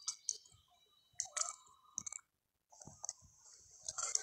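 Long-tailed macaque chewing a small piece of hand-held food: irregular sharp crunching clicks over a steady high hiss. The sound drops out completely for about half a second in the middle.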